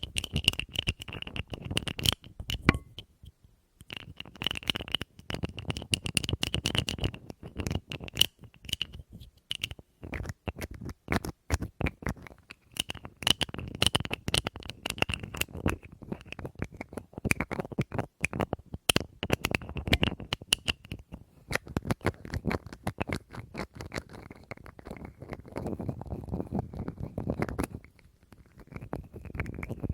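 Rapid, dense tapping and scratching on a hard object, many taps a second, with a brief pause about three seconds in.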